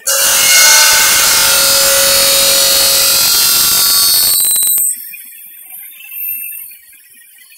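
Large circular saw blade of an aluminium profile machining centre cutting through an aluminium extrusion: a loud, high screech with ringing tones. The screech stops abruptly about five seconds in, leaving a faint high ring.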